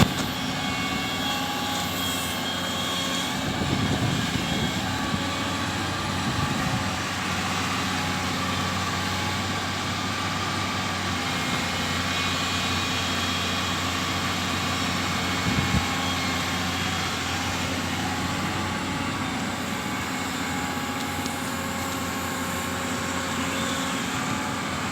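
Amphibious excavator's diesel engine running steadily, with brief louder surges about four seconds in and again near sixteen seconds.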